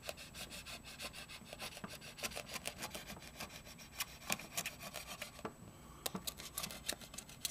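Curved-tip X-Acto knife cutting thin sticky-back foam around the rim of a hole in a clear plastic case: a faint, irregular run of small scratches and clicks as the blade works its way around.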